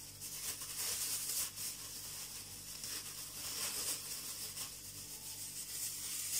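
Plastic bag crinkling and rustling as frozen sorrel is worked out of it, irregular crackles over a steady hiss.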